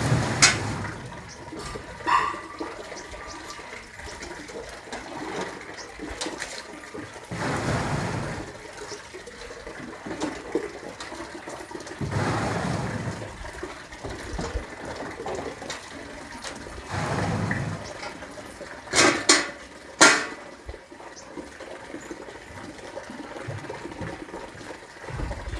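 Water sloshing and splashing in a top-loading washing machine tub as wet clothes are moved and lifted by hand, coming in swells a few seconds apart. Two sharp knocks about three-quarters of the way in.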